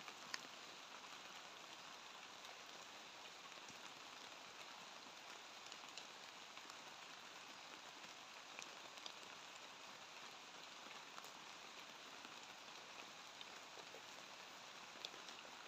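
Light rain falling, a faint steady hiss with scattered drop ticks.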